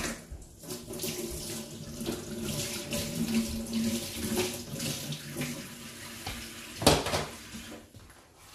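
Kitchen tap running water into a stainless-steel sink, with a sharp knock about seven seconds in. The flow dies away near the end.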